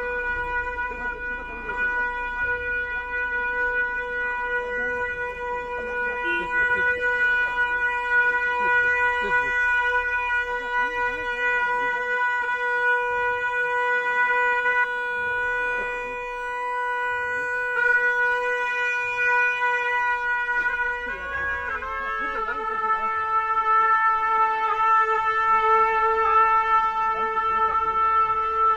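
A Tibetan ceremonial wind instrument sounds one long unbroken note. About 21 seconds in, the note drops a little in pitch and is held on.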